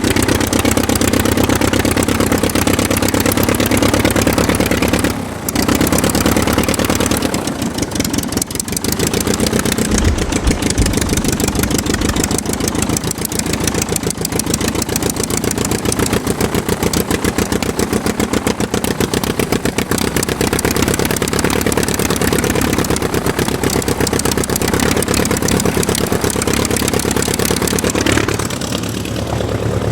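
Aircraft engine running steadily with a fast, even pulse, briefly dipping in level about five seconds in and again near the end.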